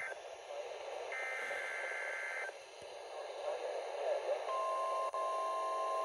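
NOAA Weather Radio test broadcast on a Midland weather radio's speaker, over steady receiver hiss. About a second in comes a warbling digital SAME header burst, about a second and a half long. From about four and a half seconds a steady alert tone sounds.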